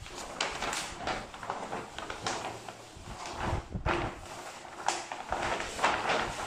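Large paper plan sheets rustling and crinkling as they are unrolled and smoothed flat by hand, with sharper crackles every second or so.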